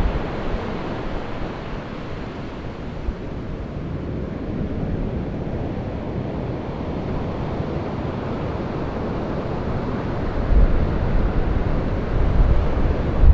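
Heavy ocean surf breaking, with wind buffeting the microphone; a deeper rumble swells louder near the end as a big wave breaks.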